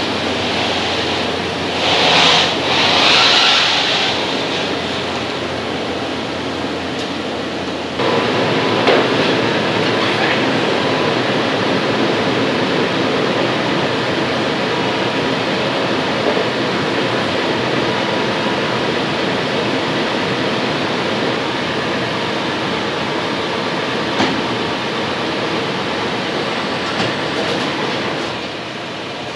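Steady road and running noise of a moving vehicle, an even rumble and hiss, with two brief hissy swells a couple of seconds in and a step up in level at about eight seconds.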